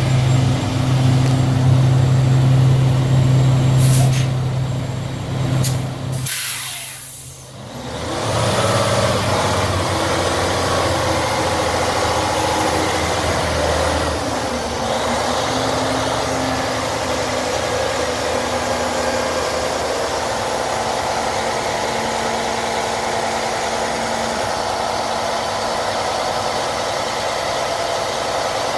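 A Peterbilt 367 dump truck's diesel engine runs steadily, with a short hiss of air about six seconds in. After the hiss the engine keeps running at a steady pitch while the hydraulic hoist raises the dump box.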